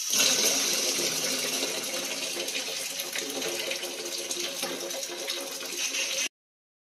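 Water running from a plastic tap in a thin stream into a partly filled plastic bucket, a steady splashing hiss that cuts off abruptly about six seconds in.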